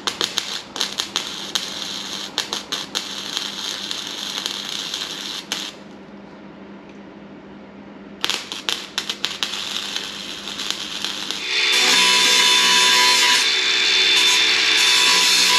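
Clarke 151TE gasless (flux-core) MIG welder crackling in short runs, with a quieter pause in the middle. About eleven seconds in, a louder steady whining hiss takes over: a power tool such as an angle grinder running on the steel.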